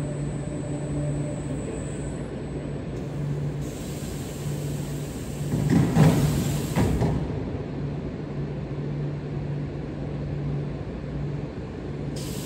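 Steady low hum of industrial machinery, with a louder rushing, clattering stretch with a few knocks about halfway through.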